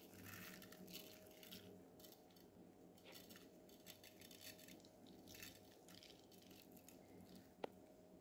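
Near silence: a faint steady hum with a few soft rustles, fitting uncooked rice grains scattered over food in a clay tagine, and one sharp click near the end.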